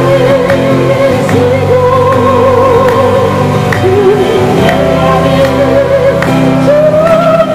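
A Christian praise song performed live: several voices singing a wavering melody into microphones over strummed acoustic guitars.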